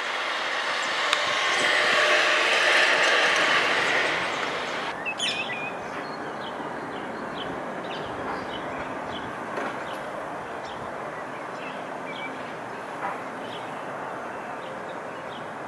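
Boeing 747-400 freighter jet climbing out, its engines making a loud, even rushing roar that swells to a peak two or three seconds in and then fades. About five seconds in the sound drops abruptly to a quieter, steady distant rumble, with short high chirps now and then.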